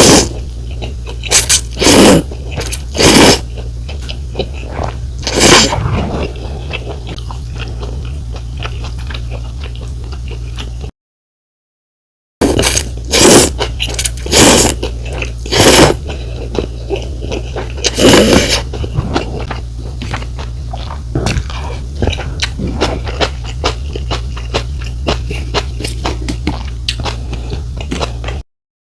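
Close-miked eating of pho: several short, loud slurps and bites of rice noodles, each followed by stretches of soft, wet chewing. The sound drops out completely for about a second and a half near the middle.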